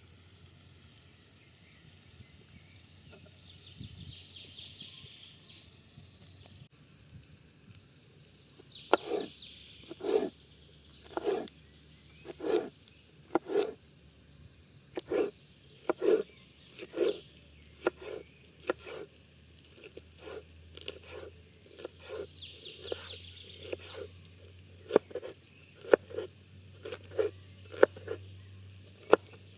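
Knife chopping on a wooden cutting board: a run of short, steady knocks, starting about eight seconds in at roughly one a second and coming closer together toward the end.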